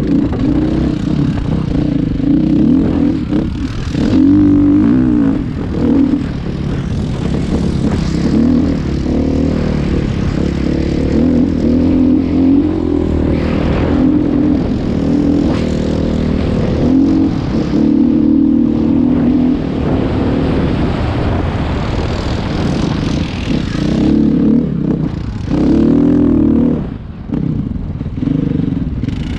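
An engine running close to the microphone throughout, its pitch rising and falling as the throttle changes, with a rushing noise over it.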